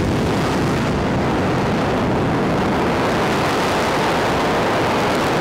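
SpaceX Super Heavy Booster 7's Raptor engines firing in a static fire test, seven engines at once: a steady, dense rush of rocket exhaust noise that starts abruptly and holds at an even level.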